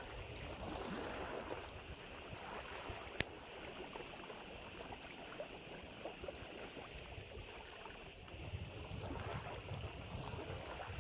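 Strong wind buffeting the microphone over lapping lake water, with gusts of low rumble growing stronger near the end. A single sharp click sounds about three seconds in.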